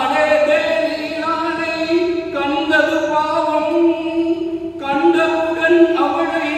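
A man singing a Tamil Christian song unaccompanied, holding long drawn-out notes with short slides between them.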